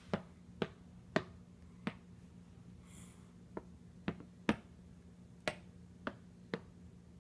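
Small wooden toy pieces knocking against wooden blocks as a blue peg is moved and set down among them: about ten sharp clicks at uneven intervals.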